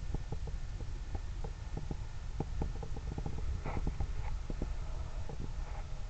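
Wind rumbling on the camera's microphone, with many faint, irregular clicks throughout.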